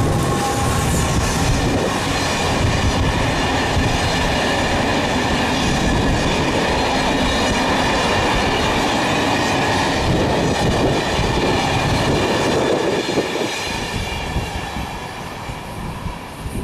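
Passenger train of coaches passing close at speed: a steady loud rumble of wheels on rail that fades away over the last few seconds as the train recedes.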